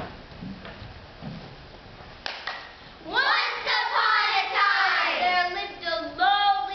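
A group of children singing together in unison, starting suddenly about three seconds in, with some notes held steady. Before that, a few soft thumps and sharp knocks from feet and movement on the stage.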